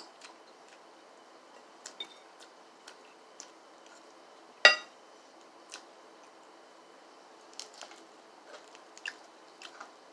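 Biting and chewing crispy fried chicken held in the hands: scattered small crunches and mouth clicks, with one loud sharp click about halfway through.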